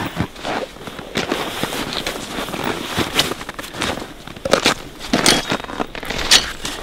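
Irregular crunching and knocking on snow and ice, with a few sharper cracks between about three and six and a half seconds in.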